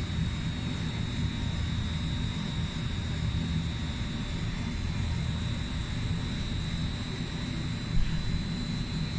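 Steady low machinery hum with a faint high whine, and a single short knock near the end.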